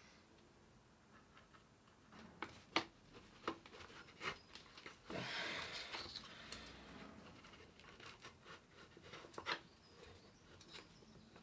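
Faint scattered clicks and knocks of glue being injected into a gap in a glued guitar top and a clamp being set on it, with a short rubbing hiss about five seconds in.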